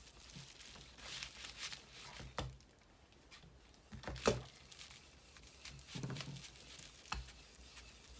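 Steel wool scrubbing the back of a guitar neck in rough strokes, taking the gloss off the finish. There are a few short knocks, the sharpest about four seconds in.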